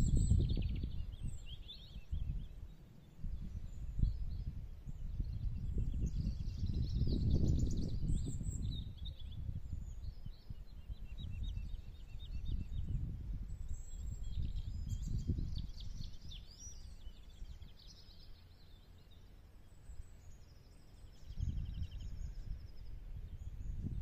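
Wind buffeting the microphone in gusts that swell and fade every few seconds, with small songbirds chirping and trilling throughout.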